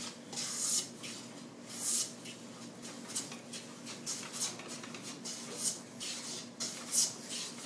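Jointer plane strokes along a maple board, a short scraping swish with each push, about one stroke a second. The iron is not cutting much at a time because the board is not yet flat: it has dips and valleys from side to side.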